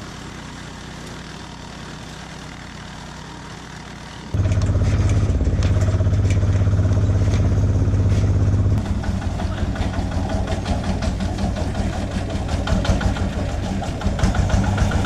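An engine-driven chipper running steadily. About four seconds in, a much louder, deeper engine takes over: a farm truck under way. From about nine seconds, a truck engine runs with a rapid clatter.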